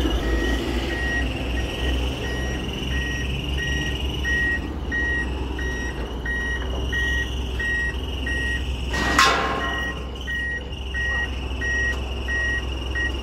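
Forklift reversing alarm beeping at an even rate over the low hum of the forklift's engine. A single sharp knock about nine seconds in.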